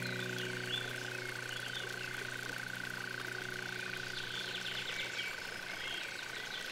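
Soft background music's held chord fades away, leaving a steady high drone and small birds chirping; new music notes come in right at the end.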